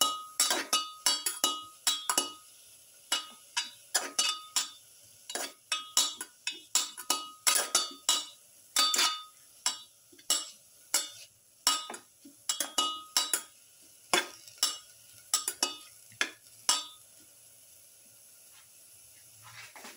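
A spatula knocking and scraping against a metal pan while stirring sliced onions sautéing in oil. The strikes are irregular, a couple a second, each with a short ringing note, and they stop about three seconds before the end.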